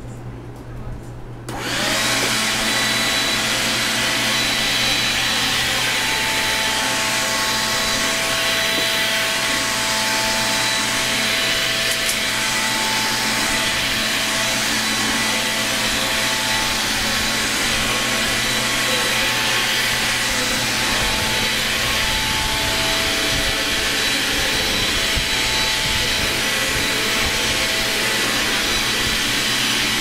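Makita CL100D 12V cordless vacuum starting up about a second and a half in, then running steadily with a high whine as its floor nozzle is worked over the floor.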